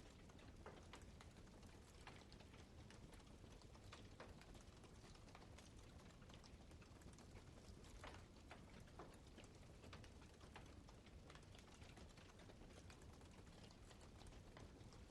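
Faint campfire crackling: burning wood giving irregular small pops and snaps over a low steady rush.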